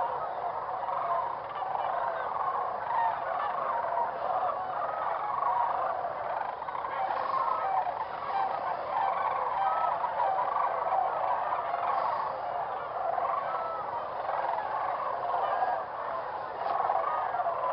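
A large mixed flock of Canada geese and cranes calling over one another, many voices at once, in a dense, unbroken chorus.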